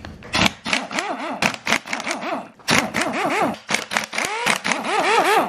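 Impact gun undoing bolts on the engine's cylinder head through a long socket extension. It runs in repeated short bursts of rapid hammering, and its pitch rises and falls with each burst.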